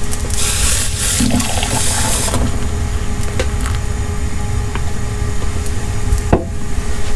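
A pot of Turkish coffee at a rolling boil, bubbling and frothing up. A rushing, watery hiss in the first two seconds stops abruptly, over a steady low rumble.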